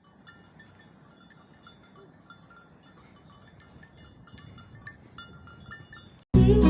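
Small metal bells clinking irregularly, many short ringing notes at a few fixed pitches, over a faint low hiss. Near the end, loud strummed acoustic guitar music cuts in suddenly.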